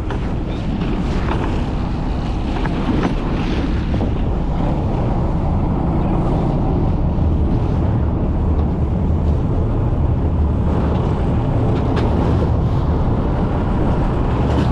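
Steady low rumble of a fishing boat at sea, with wind buffeting the microphone and a few faint knocks.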